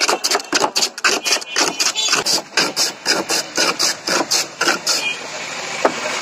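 A block of ice pushed back and forth over a blade set in a wooden board, shaving ice: quick, even scraping strokes, about three a second, that stop about five seconds in.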